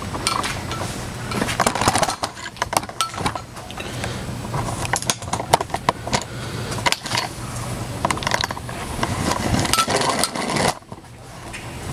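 Hand tools working on metal hardware, with many irregular sharp clicks and clinks, over a steady low hum that stops near the end.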